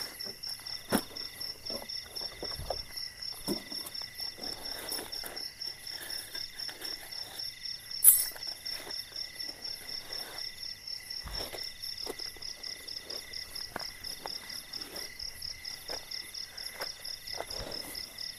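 Night insects trill steadily in a rapid, even pulse, over the rustle and small knocks of a tent and its bag being handled. One sharp, loud click comes about eight seconds in.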